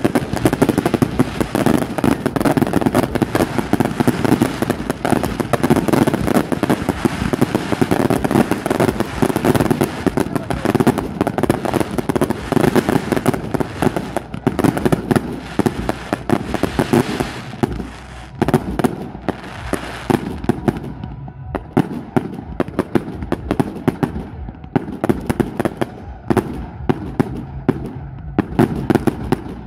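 Fireworks display: aerial shells bursting in a dense, continuous volley of bangs and crackling, thinning to separate bangs about two-thirds of the way through.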